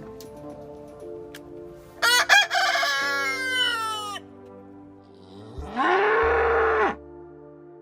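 Rooster crowing: a loud cock-a-doodle-doo about two seconds in, its pitch falling away toward the end, then a second, shorter call near the end, over soft background music.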